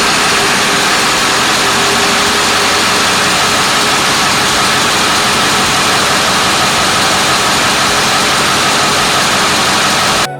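Ford F-350's 7.3-litre V8 diesel running steadily at idle, loud and close. It is running smoothly now on fuel from the front tank, after starving for fuel from the rear tank.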